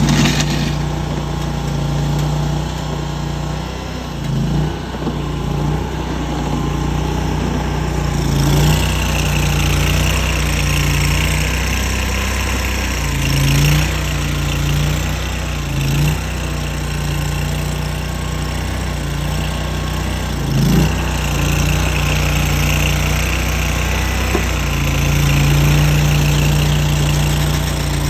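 Mini tracked skid steer's engine running steadily while it works. A higher whine comes in twice for several seconds, with a few short knocks between.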